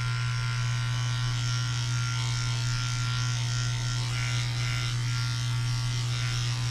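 Electric dog grooming clippers running with a steady low hum as they shave through a doodle's thick curly coat.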